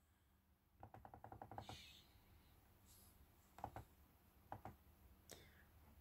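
Near silence: room tone with a few faint groups of short clicks.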